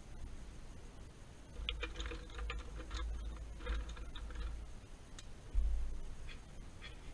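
Felt-tip markers clicking and rattling against each other and the tin box as a hand rummages through them, followed by one dull thump about halfway through and a few faint ticks.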